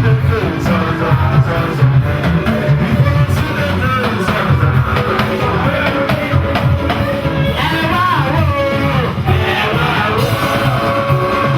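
Live gospel band music with voices singing over drums and bass.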